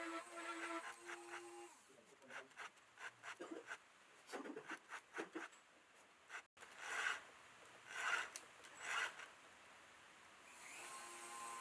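A hand file rasping across the cutter teeth of a Husqvarna 550 XP chainsaw chain to sharpen them. The strokes are quick at first, then come about once a second. Background music fades out about two seconds in and returns near the end.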